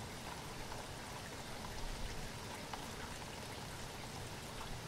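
Wind noise on a phone microphone: a steady hiss with an uneven low rumble and scattered small crackles.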